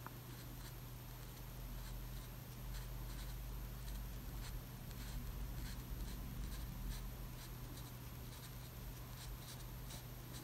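Faint, scratchy strokes of a fine-tipped watercolour brush on paper, a string of short light touches as thin branches are painted, over a low steady hum.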